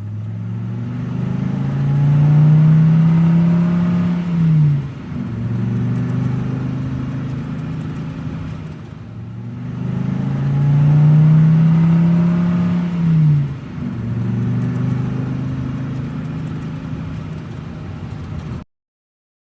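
Minibus engine sound effect. The engine revs up and holds, then drops away about four and a half seconds in. The same rev-up and drop repeats about nine seconds in, and the sound cuts off suddenly near the end.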